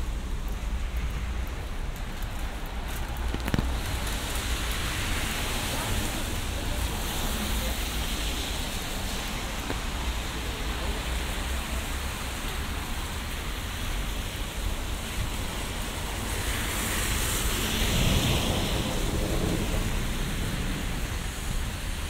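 Steady hiss of rain and wet city traffic, with one vehicle passing on the wet road, swelling and fading about three-quarters of the way through. A single faint click comes a few seconds in.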